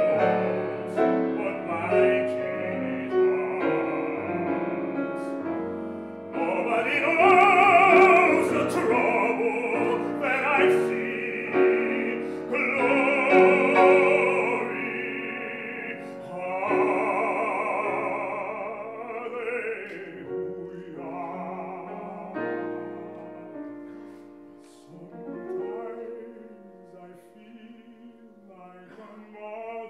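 Male baritone singing in classical operatic style with grand piano accompaniment. The voice swells loud with wide vibrato from about six seconds in until about twenty seconds, then softens toward the end.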